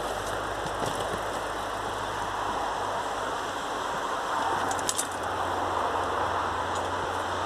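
Mountain bikes rolling down a steep dirt forest trail past the microphone over a steady hiss, with a brief metallic rattle from a bike about five seconds in.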